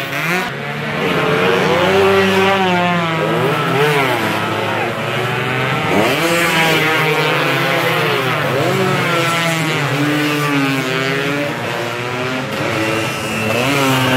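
Several two-stroke underbone racing motorcycles running hard past one after another, their engine notes overlapping. Each note dips in pitch as the rider backs off for the corner, then climbs again as he accelerates out, several times over.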